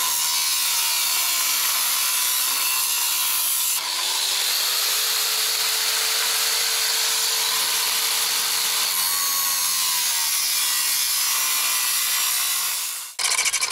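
Angle grinder with a cutting disc cutting through a steel profile in one continuous cut. The motor's pitch dips briefly and picks up again about four seconds in, and the cut stops shortly before the end.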